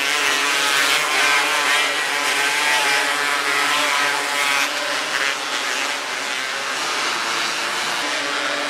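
A pack of 270cc micro sprint cars racing, several engines at high revs together, their pitches wavering up and down.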